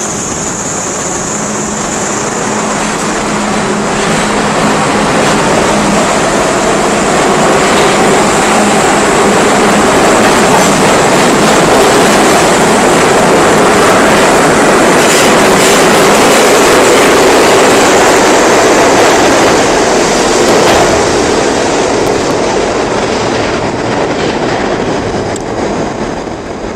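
R42 subway train departing a station: motors and steel wheels on rails growing louder as it picks up speed and passes, with a few clacks over rail joints, then easing off near the end.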